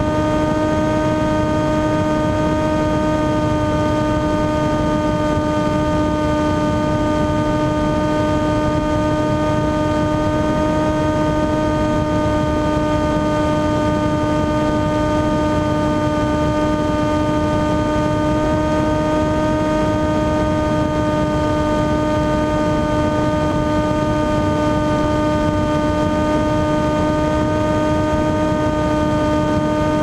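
Motor and propeller of a radio-controlled aircraft running at a steady throttle, heard from the onboard camera: a constant buzzing drone at one pitch over a steady low rushing noise.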